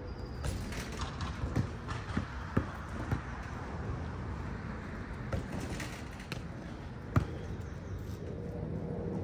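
Basketball bouncing on a court: several irregular thumps over steady background noise, the loudest about seven seconds in.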